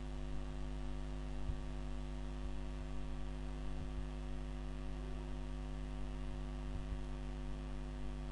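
Steady electrical mains hum picked up by the recording, a low drone with many even overtones, with a few faint low ticks now and then.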